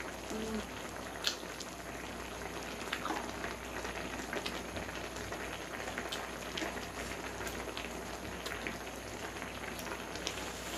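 Spam kimchi hot pot bubbling at a simmer: a steady hiss with small scattered pops and clicks.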